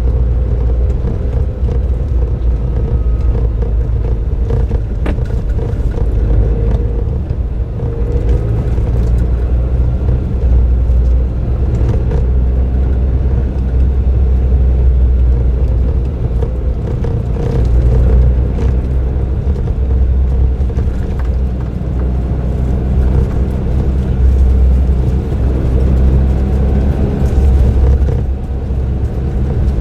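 Suzuki Jimny JB23W's 660 cc turbocharged three-cylinder engine, fitted with an aftermarket muffler, running under way with road rumble from the drive; a steady low drone that swells and eases a little as the throttle changes.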